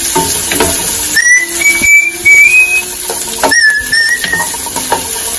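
Someone whistling two short runs of notes, about a second in and again about three and a half seconds in, over garlic and red onion sizzling in oil as a wooden spatula stirs them in the pan.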